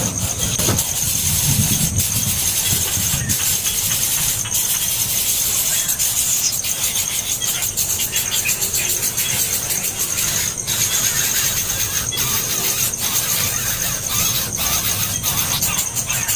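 Baby birds giving continuous shrill begging calls, a high-pitched chorus while they wait to be fed.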